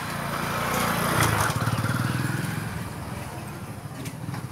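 A motor vehicle's small engine running with a rapid throb. It is loudest about a second in, then fades over the next couple of seconds.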